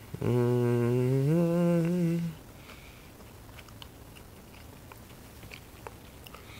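A man humming with his mouth closed for about two seconds: a low note that slides up to a higher held note, then stops. A few faint clicks follow.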